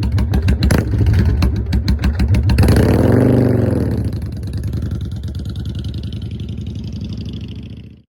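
1994 Yamaha XV750 Virago's air-cooled V-twin running through an aftermarket eBay exhaust. About two and a half seconds in it is revved once, the pitch rising and falling back. It then settles to a steady idle and cuts off abruptly near the end.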